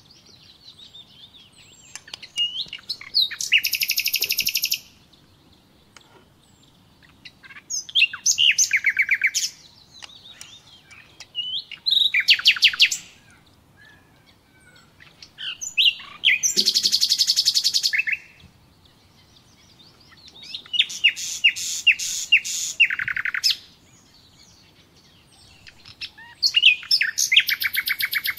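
A songbird singing: six phrases of fast, high, trilled notes, each one to three seconds long, spaced a few seconds apart.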